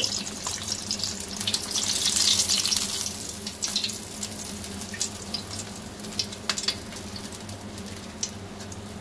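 Flour-battered chicken wings sizzling and crackling in hot oil in a wok as more pieces go in; the hiss is loudest over the first few seconds, then eases to a softer sizzle with scattered pops.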